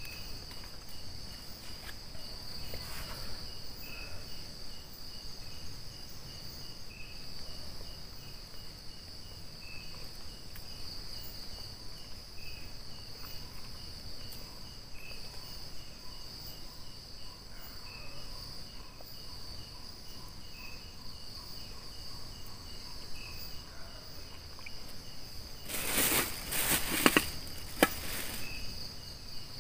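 Night chorus of crickets and other insects, a steady high-pitched trill with fainter chirps repeating at an even pace. Near the end, a few seconds of loud rustling close to the microphone.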